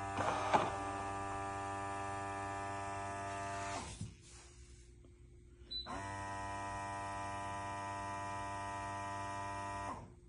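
Steady electric motor whine from the eufy X10 Pro Omni's base station during a mop-washing cycle, with a sharp click about half a second in. It runs for a few seconds, stops for about two seconds, then starts again and runs until near the end.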